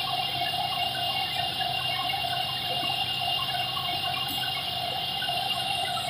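Wood chipper machine running steadily: a constant rushing noise with a high, steady whine over it.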